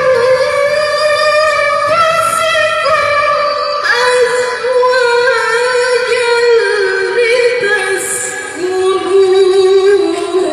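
A woman's voice reciting the Quran in melodic tartil style, drawing out long ornamented notes that waver and slide in pitch. The melody steps down to a lower held note in the second half.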